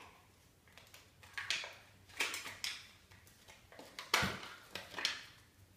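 Hands unwrapping a credit-card-sized survival multi-tool card and handling the cardboard box: a few short rustles of packaging, with a soft thump about four seconds in.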